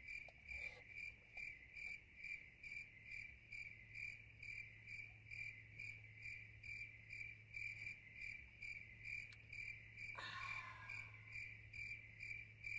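Cricket chirping sound effect: a single high chirp repeating steadily about twice a second, the stock cue for an awkward silence. About ten seconds in, a brief soft rustle sounds under it.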